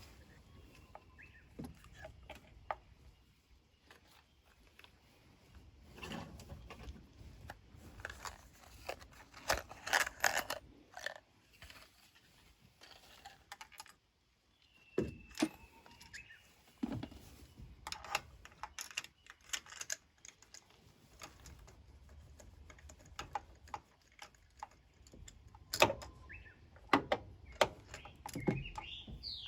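Hand tools and small metal parts clinking and clicking, a string of irregular separate knocks and clatters during spark plug work, with a brief dropout about halfway. A bird chirps right at the end.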